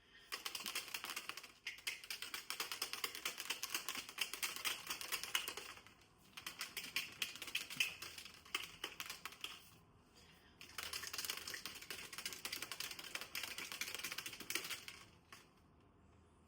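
Fast typing on a keyboard, a dense run of clicking keys in three long stretches with short pauses between them.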